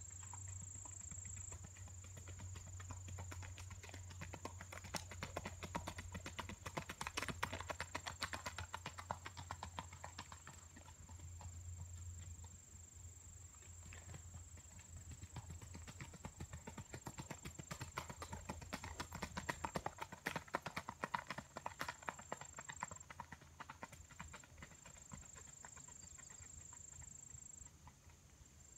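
Hoofbeats of a single-footing stallion moving fast on a gravel road in a quick, even four-beat gait. They grow loud and fade twice as the horse passes, about a quarter and two-thirds of the way through.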